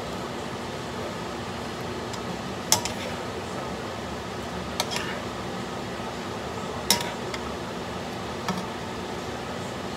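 A metal spoon stirring green beans and shrimp in a stone-coated wok, knocking against the pan in a few sharp clinks, the loudest about three seconds and seven seconds in, over a steady hiss.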